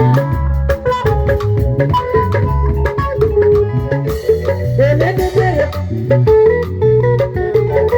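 Upbeat band music: a quick run of short, struck or picked melodic notes over a steady drum and bass beat. A brief sliding, wavering line comes in about five seconds in.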